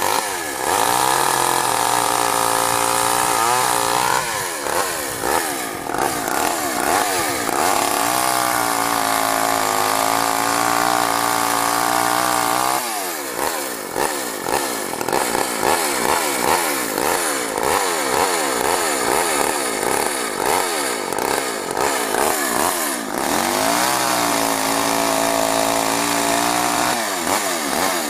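Small two-stroke engine of a 14-inch Craftsman chainsaw running at high revs, its pitch dipping and recovering over and over through the middle stretch and settling high again near the end.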